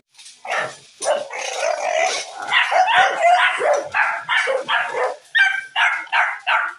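A dog barking and yipping in a run of short calls, about two a second, starting about half a second in and coming quicker near the end.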